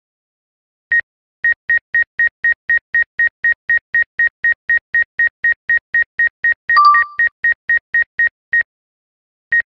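DJI flight app's obstacle-proximity warning beeping rapidly, about four short high beeps a second, as the Mavic Air's sensors detect a high-voltage pylon's steel lattice a few metres away. A different short alert tone cuts in about two-thirds of the way through, and the beeping stops shortly before a last single beep near the end.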